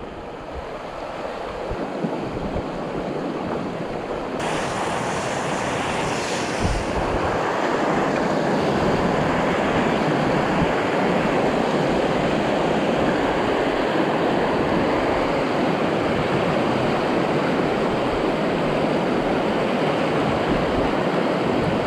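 Rushing water of a small mountain stream, a steady wash that grows louder over the first several seconds and then holds, with a brief brighter hiss between about four and seven seconds in.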